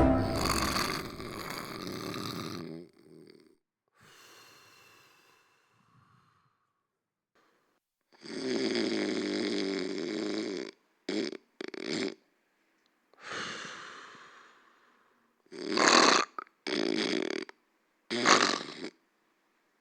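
A person snoring: one long snore about eight seconds in, then a run of shorter snores with pauses between them.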